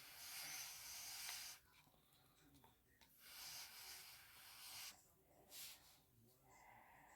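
Faint breathing through a respirator mask: three hissing breaths, two long and one short near the end.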